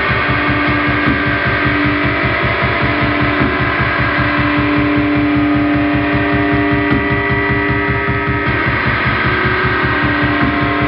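Experimental noise jam from an electric guitar and keyboard: a fast, even low pulsing with held tones layered over it, and the upper tones shift about eight seconds in.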